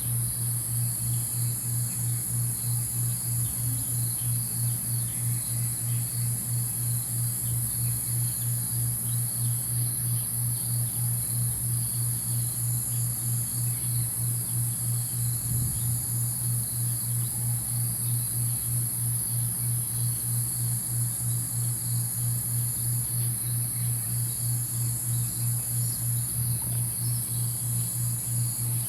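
Sunrise ambience of a steady, high cricket and insect chorus. Under it a low pulse beats evenly a few times a second, with faint scattered bird chirps.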